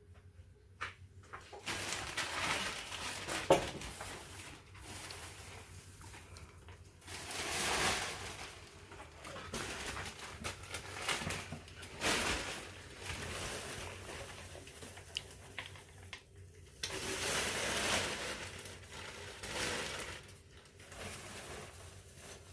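Packaging rustling and crinkling as a parcel is handled and unwrapped, in irregular swells with a sharp click about three and a half seconds in.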